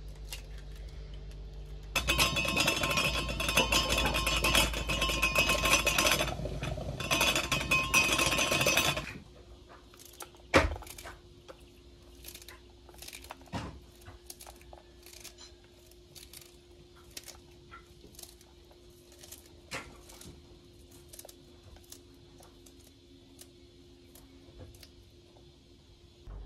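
Rapid clinking and clattering in a bowl for about seven seconds. Then soft, scattered ticks and small knocks as purslane sprigs are snapped and dropped into an enamel bowl.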